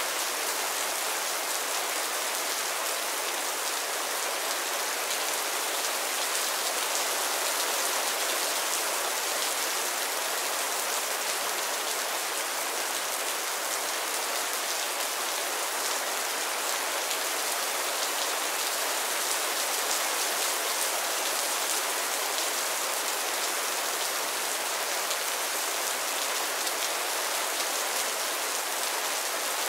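Steady rain: a constant, dense patter of drops that holds even throughout, carried mostly in the high end with almost no low rumble.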